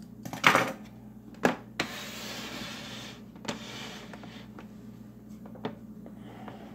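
Handling noise from hands working on an opened amplifier chassis: a loud knock about half a second in, a few sharp clicks, and about a second of rustling, over a faint steady low hum.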